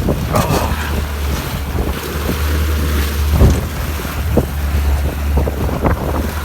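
Heavy wind rumbling on the microphone over the wash of rough water, broken by a few sharp knocks.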